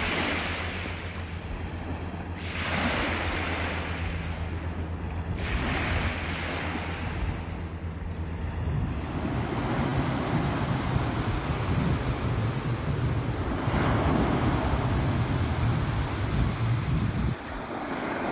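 Small waves breaking and washing up a beach, the surf swelling and ebbing every few seconds. Wind rumbles on the microphone, most strongly in the second half.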